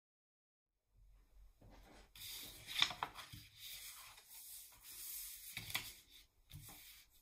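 Sheets of paper rustling and rubbing against each other as they are handled, starting about a second in, with two sharper crackles, one near the middle and one near six seconds.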